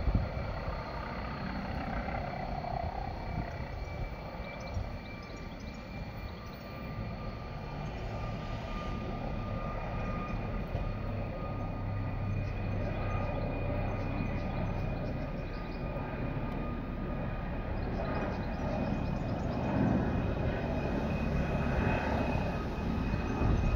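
Helicopter taking off some way off: a steady engine drone with a thin high whine over a low rumble, slowly growing louder through the second half.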